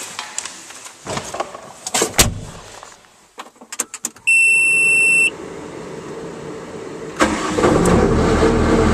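Knocks and clicks of entering the cab, then a steady electronic warning beep lasting about a second as the key is turned on, then about seven seconds in the Bobcat S185 skid steer's turbocharged Kubota diesel engine starts and runs steadily.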